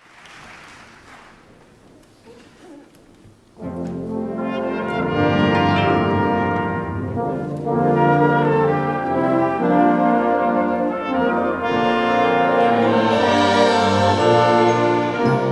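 Concert wind band with prominent brass, trombones, horns and trumpets, playing the instrumental opening of the song. It comes in loud and sudden about three and a half seconds in, after faint background noise.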